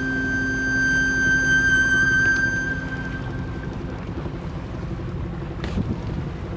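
A long held note of background jazz music fades out over the first three seconds, leaving wind buffeting the microphone and the wash of water around a sailing boat under way.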